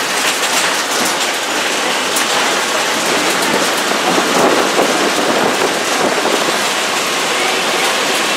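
Steady rushing noise inside a moving bus with its windows open: wind through the windows blended with road noise, with no distinct engine note.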